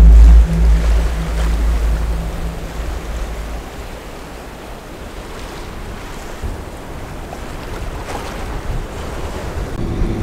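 Aluminium sailboat underway: wind on the microphone and water rushing past the hull, with a loud low rumble that starts abruptly and dies away after about four seconds.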